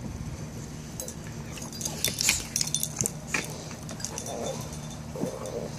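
A Chihuahua and a Mastiff play-fighting: collar tags jingling and clinking in scattered bursts, with mouthing and scuffling sounds.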